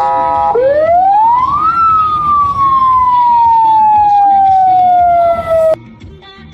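Police siren: a brief steady horn tone, then one wail that rises quickly and falls slowly over about four seconds before cutting off suddenly.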